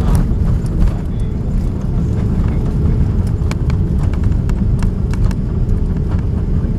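Airbus A330 landing roll heard inside the cabin: a steady low rumble from the wheels on the runway, with irregular clicks and rattles throughout.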